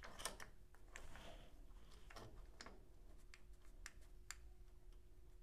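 Quiet, scattered small clicks and light metallic ticks from hands adjusting a dial indicator and its stand against a lathe chuck, over a faint steady hum.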